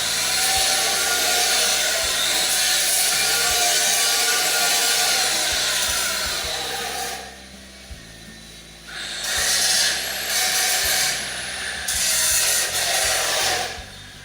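A power tool working metal in two long runs, the second starting after a pause of about two seconds, with a high whine that drops in pitch near the end.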